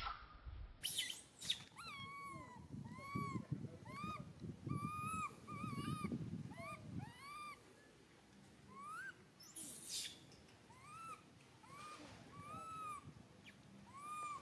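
Baby macaque crying for its mother: a long string of short, high calls, each rising and falling, repeated close together with hardly a pause. A low rumbling noise lies under the first half.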